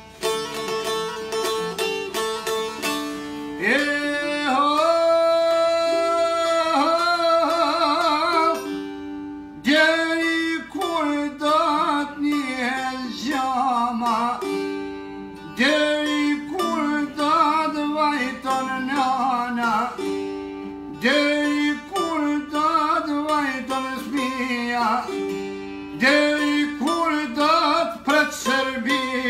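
A man singing an Albanian folk song in long, wavering phrases to the plucked accompaniment of çifteli, two-stringed long-necked lutes. The lutes play alone for the first few seconds before the voice comes in.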